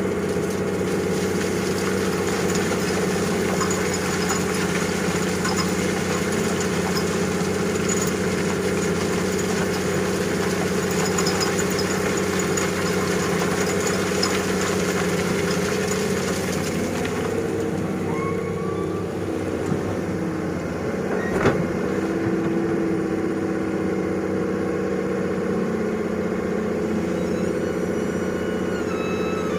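Heavy earthmoving machine's engine running steadily with a low, even drone. About two-thirds of the way through, a single short knock sounds over it.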